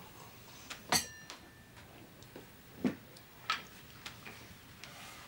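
Tableware knocking at a dinner table: a glass clinks and rings briefly about a second in, followed by a few lighter knocks of cutlery or glass on the table.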